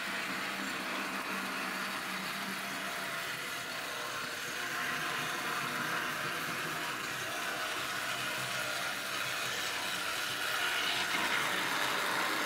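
Small electric motor and metal wheels of a 00-scale model tram running along the track: a steady whir that grows louder about a third of the way in and again near the end as the tram comes close.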